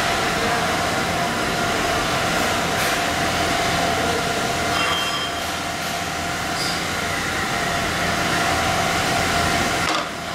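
Steady whir of running mask-making machinery: a constant whine over a rushing hiss, dropping slightly in level near the end.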